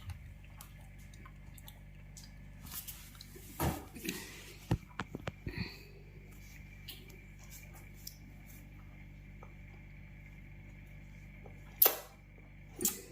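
Scattered knocks and clicks over a steady low hum, with a cluster of louder knocks around the middle and two sharp knocks near the end.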